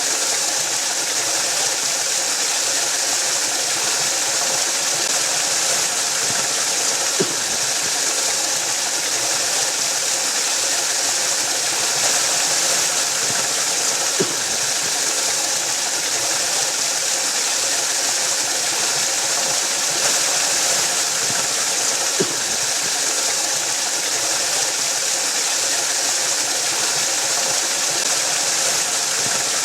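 Waterfall rushing in a steady, unbroken hiss. A soft tick comes about every seven to eight seconds.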